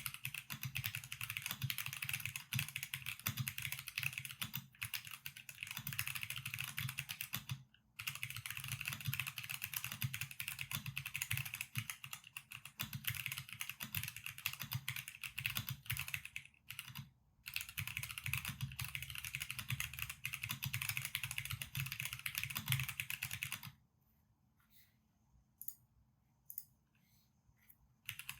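Fast, continuous typing on a custom mechanical keyboard with factory-lubed Gateron Limbo switches, a 5mm polycarbonate plate and PBT keycaps. The keystrokes come in a dense stream with two short breaks. Near the end the typing thins out to a few single keystrokes.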